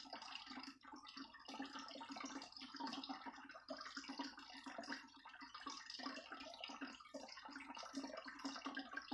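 Faint, uneven trickling of running water.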